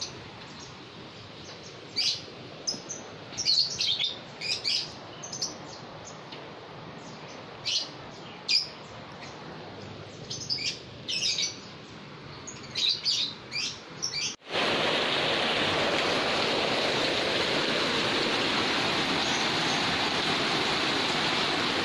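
Small birds chirping, a few short calls at a time, over a faint steady hiss. About 14 seconds in, the sound cuts abruptly to a louder, steady rush of water from flooding.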